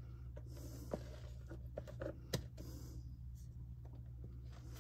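Faint clicks and taps of whipped topping being scooped from a plastic tub into a stainless steel mixing bowl, the sharpest tap about two seconds in, over a steady low hum.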